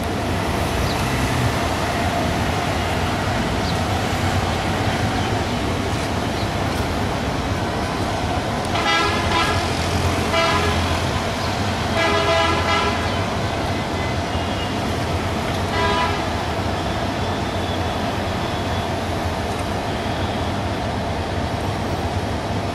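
Diesel train locomotives rumbling steadily, with a train horn sounding four short blasts in the middle, the third the longest.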